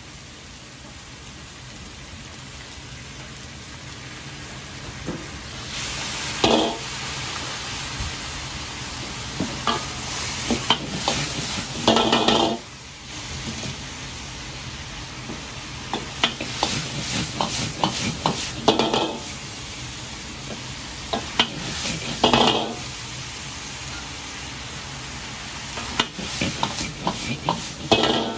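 Food sizzling in a carbon-steel wok over a gas wok burner, with a metal ladle clacking and scraping against the pan. The sizzle surges loudly several times as the wok is tossed.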